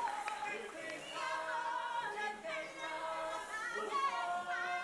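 A group of voices singing together in close harmony without instruments, several sustained notes sliding between pitches.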